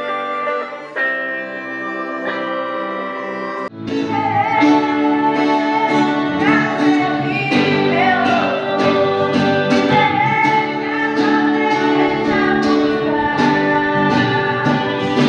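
Music with singing: a group sings a hymn over held instrumental notes, then about four seconds in the sound cuts abruptly to a louder song with sung voice and plucked guitar.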